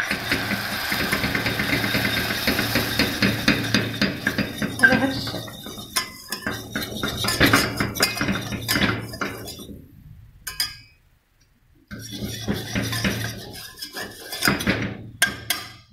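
Wire whisk scraping and clinking against a stainless steel pot as flour is whisked into melted butter for a béchamel roux: fast repeated taps and scrapes. They stop for about a second and a half roughly ten and a half seconds in, then start again.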